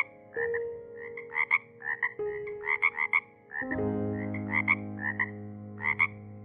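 An animal calling in short, quick notes that come in clusters of two to four, over soft background music with held chords.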